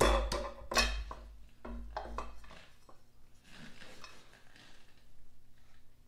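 Metal clinking and scraping from a crankshaft damper pulley being handled and fitted onto the front of an L28 engine by hand. Several sharp clinks come in the first second, then lighter clicks, fading to faint scraping.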